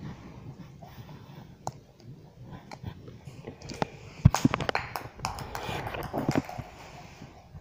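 Small plastic toy ball clattering on a tile floor: a run of sharp clicks and knocks, the loudest about four seconds in, mixed with rustling.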